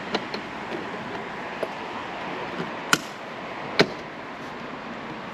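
Several sharp clicks and knocks, the two loudest about three and four seconds in, over a steady background rumble.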